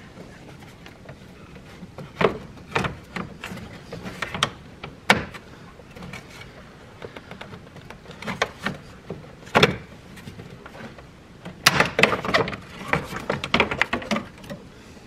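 Range Rover L322's plastic radiator fan shroud being worked out of the engine bay: scattered knocks, clicks and scrapes of plastic against the radiator and hoses. They are single and spaced at first, then come thick and fast for a couple of seconds near the end.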